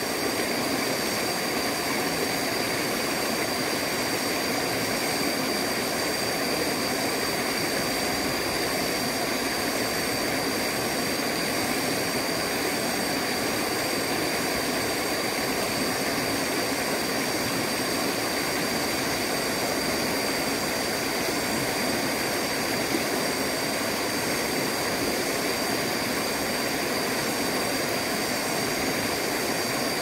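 Rushing water of a shallow rocky stream cascading over boulders: a steady, even rush that holds the same level throughout.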